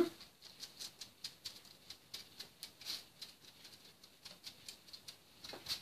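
Paintbrush dabbing watercolour paint onto paper: faint, irregular light taps, several a second, with one slightly louder tap near the end.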